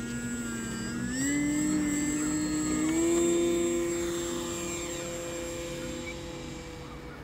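SunnySky X2814 brushless electric motor and propeller of a 3D-printed RC power glider throttling up for takeoff: a whine that steps up in pitch twice over the first three seconds, loudest about three seconds in, then holds steady and fades as the plane climbs away.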